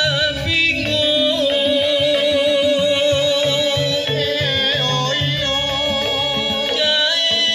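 A song with a wavering sung melody over heavy, repeated bass beats, played loud through a large outdoor sound system of subwoofer cabinets and line-array speakers.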